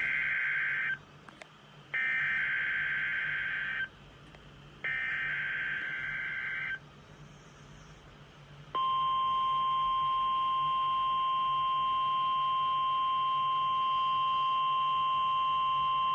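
NOAA Weather Radio SAME (Specific Area Message Encoding) header: three data bursts of about two seconds each, a second apart, the first already under way. About two seconds after the third, the steady 1050 Hz weather radio alert tone starts about nine seconds in and holds. Together they make up the required weekly test of the alerting system.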